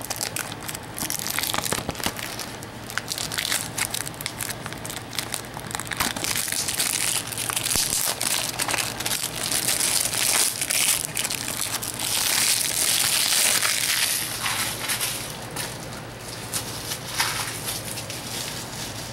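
Plastic shrink-wrap on a Blu-ray case crinkling and crackling as it is torn and peeled off, with many quick crackles, busiest in the middle of the stretch.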